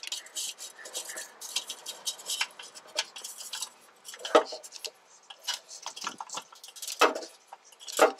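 Metal clinks and knocks as a socket wrench is fumbled onto engine bolts in a cramped space, with three louder knocks in the second half.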